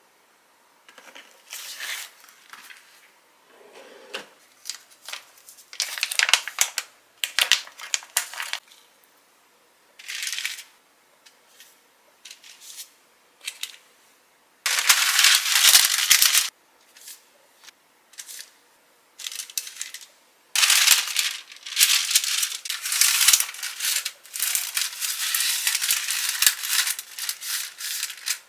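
Baking paper and plastic bacon packaging crinkling and rustling in irregular bursts as bacon strips are laid out and rolled up in the paper. Near the end the crinkling runs almost without a break.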